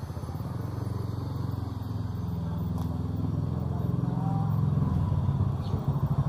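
Motorcycle engine running close by, a steady low pulsing that grows louder towards the end.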